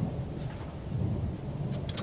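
A screwdriver tightening a hose clamp on a transmission cooler hose, with a couple of faint clicks near the end, over a low, uneven rumble.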